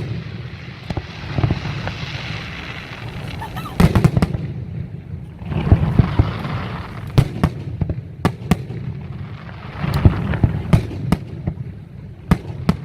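Fireworks display: shells bursting in an irregular series of sharp, loud bangs, several of them close together, with noisy crackle and rumble between.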